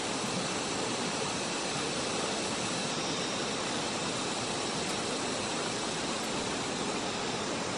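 Steady, even rushing of running water, with no separate events standing out.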